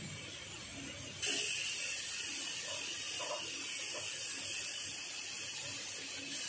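Grated carrots frying in hot ghee in a steel kadhai, a steady sizzling hiss that comes in abruptly about a second in, with a few faint knocks.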